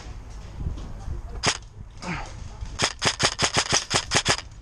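Airsoft electric rifle fired on semi-auto: one shot, then a fast string of about eleven shots at roughly seven a second near the end. Wind buffets the microphone underneath.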